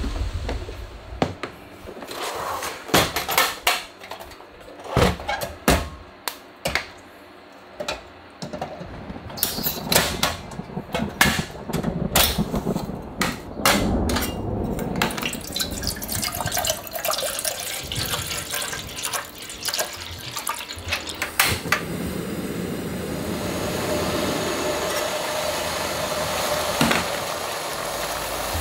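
Knocks and clicks as a portable butane stove is taken out of its plastic carry case and a kettle is set on it. From about halfway through, a steady hiss of the lit burner heating the kettle of water toward a boil.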